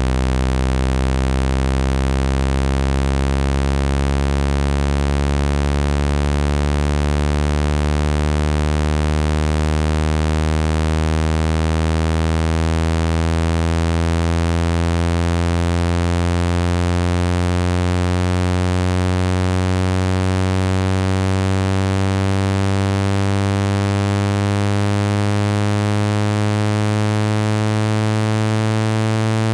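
Synthesized low buzzing tone, rich in overtones, held steady in loudness while its pitch slowly rises. It is the speaker-cleaning frequency played to shake trapped water out of a wet phone speaker.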